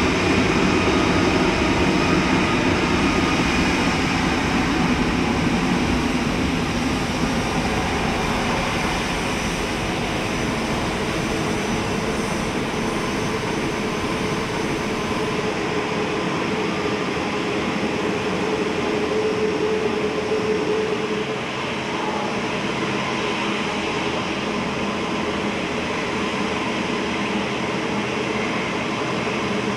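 Jet airliner engines running: a turbine whine climbs in pitch and levels off at the start, then a steady rush of engine noise carries on.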